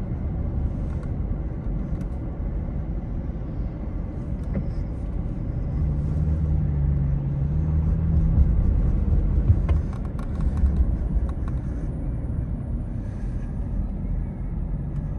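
Steady low outdoor rumble of city traffic and wind on the microphone during a sandstorm. A deeper humming note swells in the middle, around six to nine seconds, and then fades.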